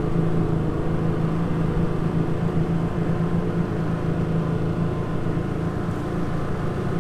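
Jet boat's engine running steadily under way, a constant drone.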